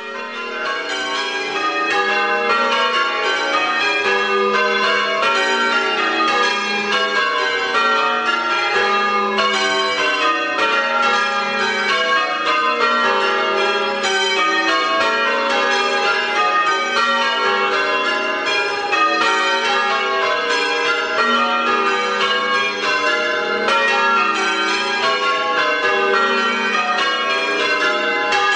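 Church bells change ringing a Major method on eight bells: a continuous, even stream of strikes with the changes following one another without a break, fading in over the first second.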